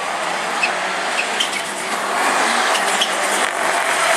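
Rallycross Supercar engine running hard as the car drives by, with a rush of tyre and track noise; it gets louder from about two seconds in.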